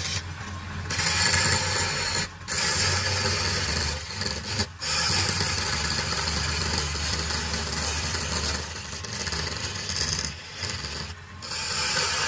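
Hand-held chisel cutting and scraping a small wooden vase spinning on a wood lathe, over the lathe's steady hum. The cutting noise breaks off briefly a few times as the tool is lifted from the wood.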